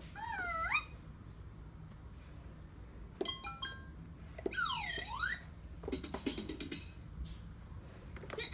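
Fisher-Price Laugh & Learn Stride-to-Ride Puppy playing electronic sound effects as its nose and chest buttons are pressed: a wobbling glide in pitch at the start, a quick run of short beeps about three seconds in, and a swooping whoop about a second later.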